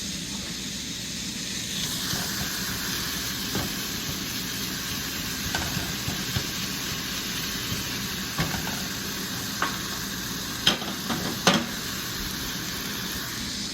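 Ground chicken sizzling in a frying pan, a steady hiss, stirred with a utensil that gives a few sharp clicks against the pan, the loudest two near the end.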